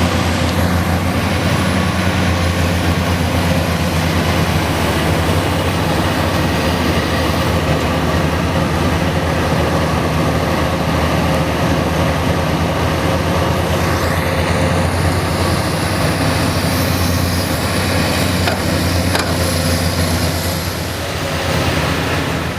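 Excavator's diesel engine running steadily, a loud low drone.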